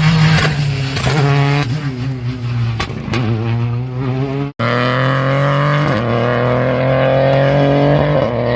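Rally car engine at high revs, its pitch falling and rising as it is driven hard. About four and a half seconds in the sound cuts off for an instant, then a loud, steady engine note climbs slowly.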